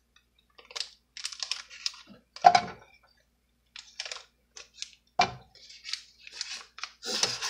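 Paper butter wrapper crinkling and rustling in bursts as butter is cut from the stick with a table knife, with two sharper knocks about two and a half and five seconds in.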